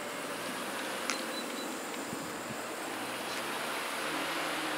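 Steady road and wind noise with a low engine hum that grows a little toward the end, as a car draws up to cross. There is one sharp click about a second in.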